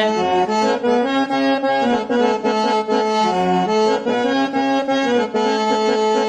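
Harmonium playing a melodic instrumental break over a steady drone note, between sung verses of a Punjabi devotional song.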